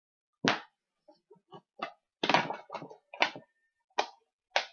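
Plastic disc golf discs knocking and clattering against one another as they are handled, tossed aside and stacked, in a string of sharp knocks, some in a quick cluster about two seconds in.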